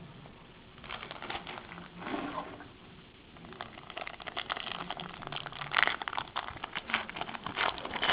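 Trading-card packs and cards being handled: irregular rustling and crinkling, busiest in the second half.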